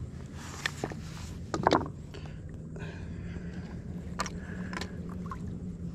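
Knocks and rattles of a fishing rod and gear being handled against a plastic sit-on-top paddleboard-kayak, with a short rushing noise about half a second in and the loudest knock just under two seconds in. A low steady hum runs under the second half.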